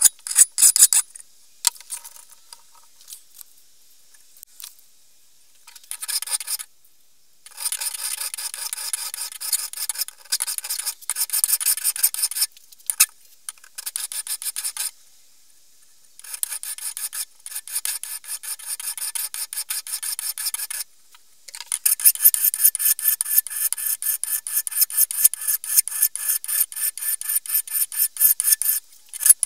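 Hand file rasping on the steel pick spike of a fireman's axe head held in a vise, in runs of quick back-and-forth strokes broken by a few short pauses.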